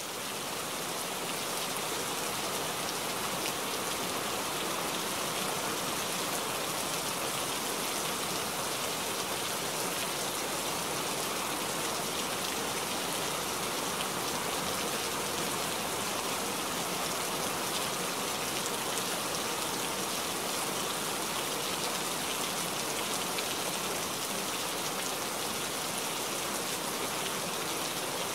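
Steady rain, an even hiss of falling rain with no thunder. It swells up over the first second, then holds steady.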